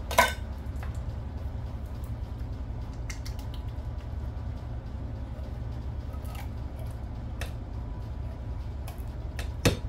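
Thick condensed cream of chicken soup being scraped from its can and stirred into a stainless bowl with a spatula, with soft squishing sounds. A sharp knock comes right at the start and another near the end, over a steady low hum.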